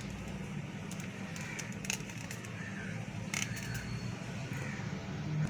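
A few light clicks and knocks as fresh cream is added to a bowl from its container, over a steady low hum, with faint bird chirps in the background.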